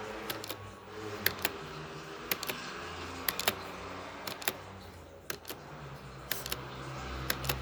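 Timer ticking: sharp clicks, mostly in close pairs, about once a second over a low steady hum.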